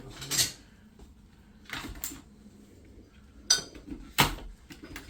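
Metal plumbing tools and fittings clinking as they are handled: four or five separate sharp clinks spread over a few seconds, the two loudest a little past the middle.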